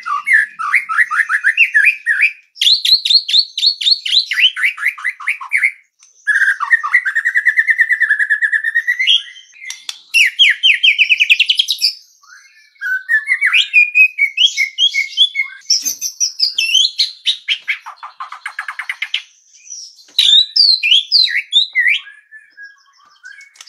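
White-rumped shama (murai batu) singing a long, varied song of fast trills, rattling phrases and whistled glides, broken by a few short pauses. It is a masteran recording, played to get other songbirds to sing.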